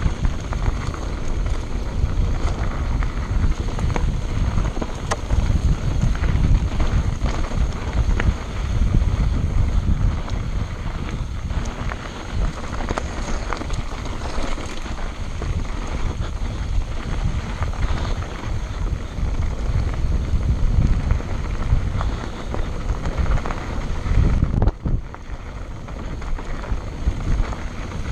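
Mountain bike riding fast down rocky, gravelly singletrack: tyres crunching and rattling over stones, the bike clattering, and wind buffeting the camera's microphone with a heavy rumble. The noise eases briefly near the end, then picks up again.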